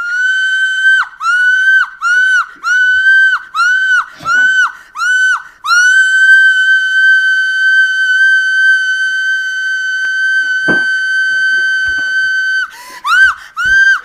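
A young woman screaming in fright: a run of about eight short, high-pitched shrieks, each dropping in pitch at the end, then one long scream held at a steady pitch for about seven seconds, then more short shrieks near the end. Very loud.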